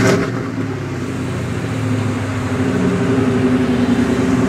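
Supercharged 5.4-litre V8 from an SVT Lightning, swapped into a Ford Ranger, idling steadily with a little rumbly exhaust note.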